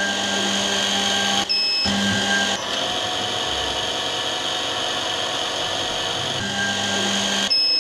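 The drill spindle motor of a DM-200 eyeglass-lens drilling machine runs steadily while holes are drilled in a plastic lens. Two short high electronic beeps come at about a second and a half and near the end, and the motor's tone shifts in between as the head moves to the next hole position.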